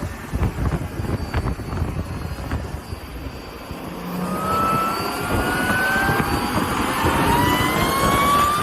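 Audi B8 S4's supercharged 3.0-litre V6 under way, with a steady rumble, then accelerating from about four seconds in as a whine climbs steadily in pitch and grows louder.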